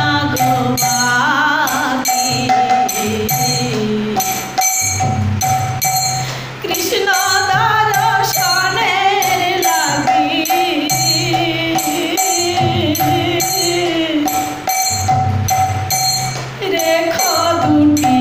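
A woman singing a Bengali devotional folk song into a microphone over music with a steady jingling, tambourine-like rhythm. Her sung phrases come and go, about a second in, from about seven to ten seconds and near the end, while the accompaniment keeps on between them.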